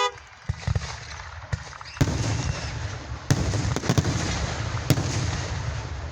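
Aerial fireworks going off: a steady crackling rumble that grows louder about two seconds in, with sharp bangs about two, three and a quarter, four and five seconds in.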